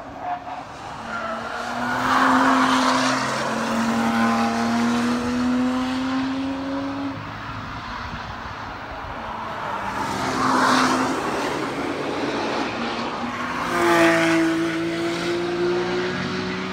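Sports cars driving past one after another, three loud passes, with engine notes climbing slowly in pitch as each car accelerates away from a corner.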